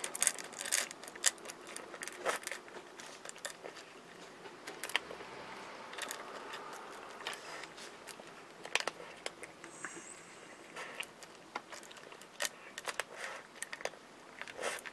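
Cat eating from a stainless-steel bowl: irregular clicks of chewing and lapping, with the odd tap against the bowl.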